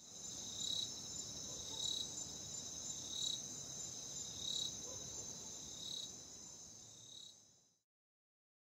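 Crickets and other night insects calling: a steady high-pitched trill with a louder chirp repeating about every second and a quarter. It fades and cuts off shortly before the end.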